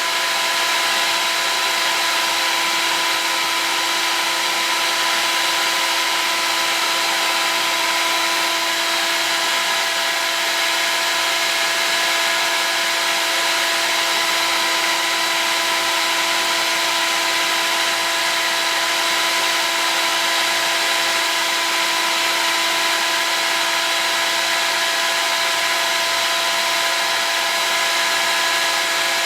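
Heat gun running steadily, its fan blowing a loud, even hiss of hot air with a constant motor whine, heating acrylic tube to soften it for bending.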